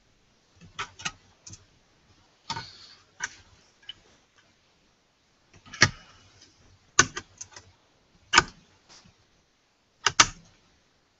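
Sharp, irregular clicks and taps of a metal hard-drive tray and drive being pressed and seated onto a mini-PC motherboard, about a dozen spread unevenly over several seconds.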